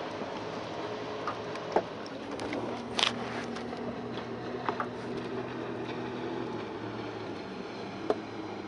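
A small motor humming steadily at a low pitch, dying away about two-thirds of the way in, with a few sharp clicks and knocks on top, the loudest about three seconds in.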